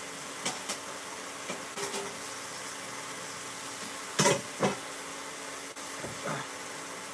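Armadillo meat sizzling in a crowded pan, a steady hiss. Over it come clinks and clatters of a stainless steel bowl being handled at the sink, the loudest a sharp double clatter about four seconds in.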